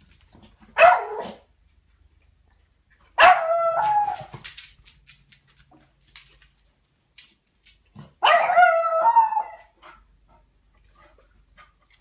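A dog giving three loud, drawn-out barks: a short one about a second in, then longer ones around three seconds in and around eight seconds in.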